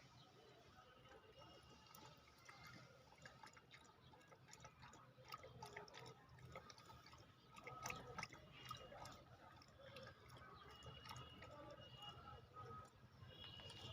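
Faint trickling and dripping of a dog urinating, with scattered small clicks.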